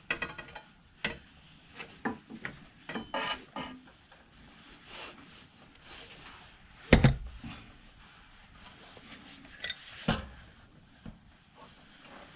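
Metal tools and parts clinking, scraping and being set down during motorcycle front-wheel removal. A heavy thump about seven seconds in is the loudest sound, and a smaller knock follows a few seconds later.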